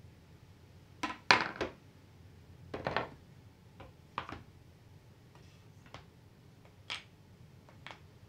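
Plywood boards and smaller plywood pieces set down one after another on a wooden workbench and onto each other: a string of short wooden knocks. The loudest cluster comes about a second in, another follows near three seconds, and then come lighter single knocks.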